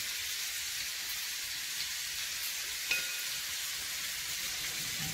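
Duck pieces frying in butter in a frying pan: a steady sizzle, with one light click about three seconds in.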